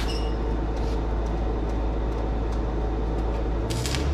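Welding machine running with a steady hum. Near the end a stick-welding arc is struck on the excavator boom with a 9018 low-hydrogen rod, and a crackle starts.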